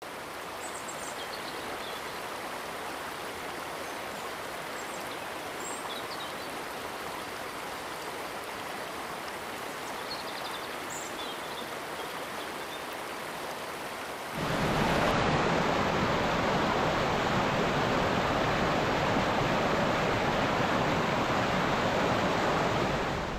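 Rushing water of a stream, a steady hiss with a few faint high chirps. About 14 seconds in it cuts abruptly to a louder, fuller rush of water.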